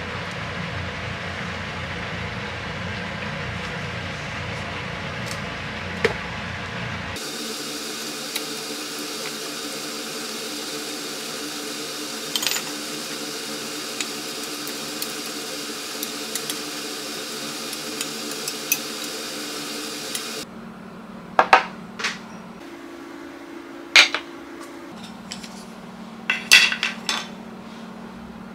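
Steady kitchen hum and noise, changing in tone about seven seconds in. In the last part this drops away, and ceramic bowls and cutlery are set down on wooden trays with several sharp clinks and knocks.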